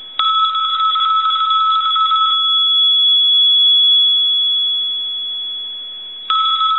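Empress desk telephone's mechanical bell ringing on ringing current from a line analyzer, now working with its ringer coil on a good tap: a ring of about two seconds, the gongs humming on and fading for about four seconds, then the next ring starting near the end.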